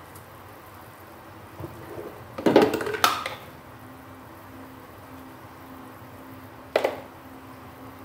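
Kitchen clatter of a spice jar and utensils being handled at a pot on a gas stove: a burst of clinks and knocks a couple of seconds in, then one sharp knock near the end, over a faint steady hiss.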